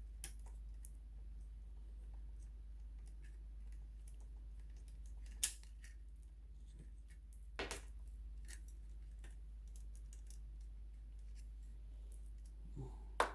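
Sharp clicks and taps of small hard parts being handled as a plate is fitted into the sewing machine's floppy drive housing. The loudest click comes about five and a half seconds in and another near eight seconds, over a steady low hum.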